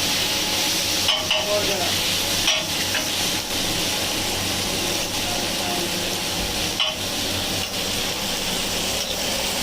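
Chicken masala frying in hot oil in a pan, a steady sizzle, with a few knocks and scrapes of the spatula as it is stirred.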